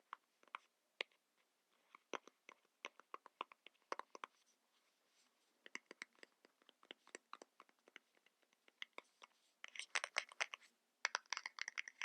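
Fingernails tapping and scratching on makeup packaging for ASMR: scattered sharp clicks, thickening into dense rapid bursts near the end.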